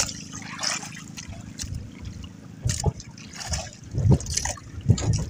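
Sea water splashing and lapping against the hull of a small outrigger fishing boat, with irregular splashes and a few dull low thumps near the end.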